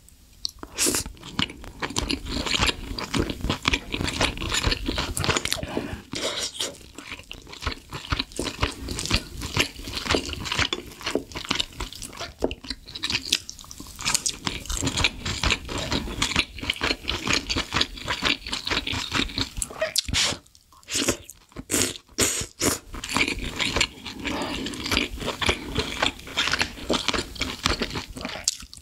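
Close-miked eating sounds: steady chewing of a mouthful of rice and beef rib, with crisp crunches throughout. About two-thirds of the way through there is a brief pause, then a few sharp crunches.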